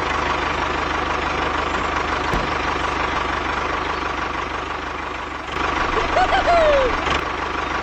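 Engine idling steadily just after starting, with an even firing rhythm.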